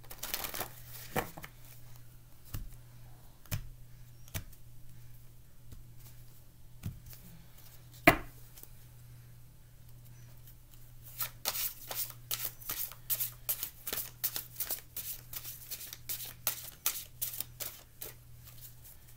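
Deck of oracle cards being shuffled by hand: scattered soft card sounds with one sharp knock about eight seconds in, then from about eleven seconds a quick, steady run of card flicks as the shuffling picks up. A low steady hum runs underneath.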